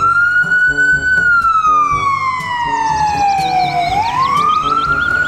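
Ambulance siren in a slow wail: its pitch holds high, falls gradually for about three seconds, then rises again near the end. Children's background music with a steady beat plays underneath.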